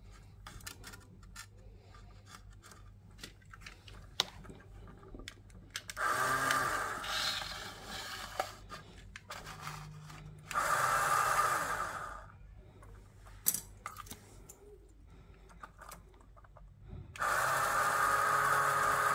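Lego Technic plastic parts clicking and snapping together several times. Then a Lego Power Functions XL motor whines as it spins a homemade Lego CV joint and driveshaft in short runs: one about six seconds in that speeds up and slows, another around ten seconds. It runs steadily from about seventeen seconds on.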